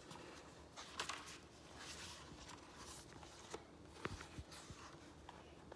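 Quiet room with faint rustling and a few soft clicks from the pages of a picture book being handled and turned.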